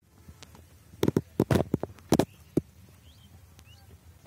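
A quick run of about eight sharp knocks and taps, clustered between about one and two and a half seconds in, over a low steady rumble.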